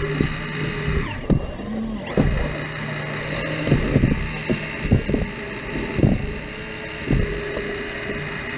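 CAT 235 excavator working in sand: a steady running drone, with the load changing briefly about a second in, and a string of short knocks and scrapes from the bucket and machine.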